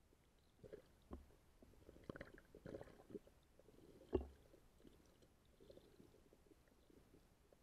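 Faint, muffled underwater pops, clicks and low thumps, scattered irregularly, with one sharper knock and thump about four seconds in.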